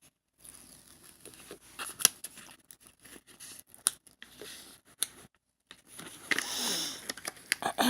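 Handling noise of a diamond-painting canvas being moved and unrolled: scattered light clicks and scrapes, then a longer rustle near the end.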